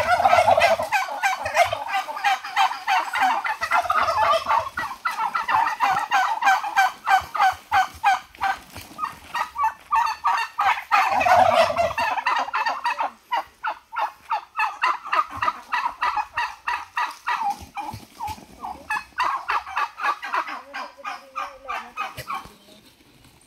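Domestic farm turkeys gobbling, rapid rattling gobbles repeated in overlapping bursts, dying away near the end.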